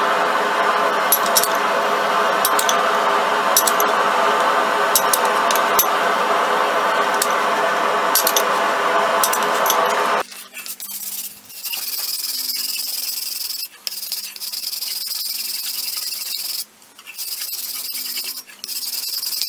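A steady rushing noise with scattered faint clicks. About halfway through, it gives way to long scraping strokes of a hand file drawn along a steel sword blade, each stroke two to three seconds long with short breaks between.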